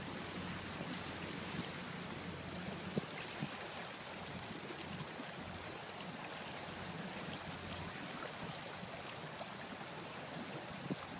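Steady wash of water along the steel hull of a barge under way, over the low, steady drone of the tugboat's engine.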